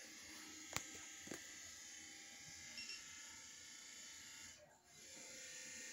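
Faint steady whir of a handheld LED dental curing light held on the lower braces brackets to set the bonding adhesive. Two light clicks come about a second in, and the whir drops out briefly just before the five-second mark, then comes back.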